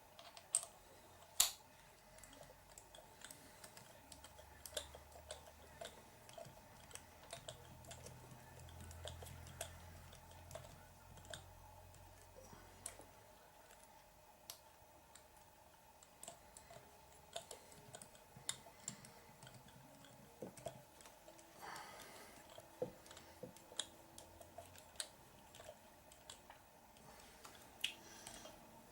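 Faint, irregular small clicks and taps of plastic and metal parts being handled as screws are driven in to fasten the rear suspension arm mounts of an RC car kit.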